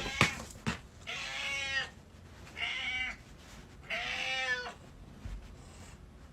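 An animal calling three times, each a drawn-out cry whose pitch rises and then falls, with a few short clicks in the first second.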